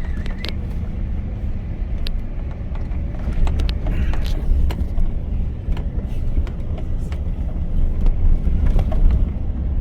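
Car driving on a rough road: a steady low rumble with scattered knocks and rattles.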